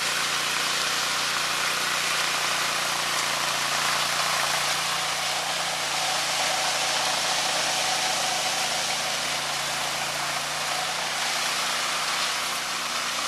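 Ride-on twin-rotor power trowel running steadily as its blades smooth a fresh concrete slab: an even engine hum with a broad hiss over it.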